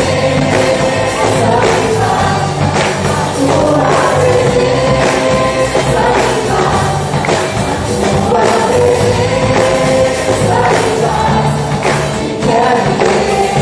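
Christian worship song: a group of voices singing together over a band, with bass and drum strokes keeping a steady beat.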